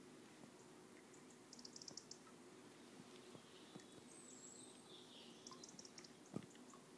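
Near silence: faint ambience with a few short runs of high, rapid chirps, and one soft thump about six seconds in.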